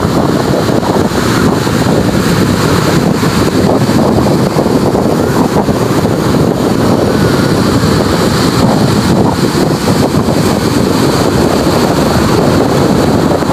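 Wind rushing over the microphone together with ocean surf breaking and washing ashore: a loud, steady rush that does not let up.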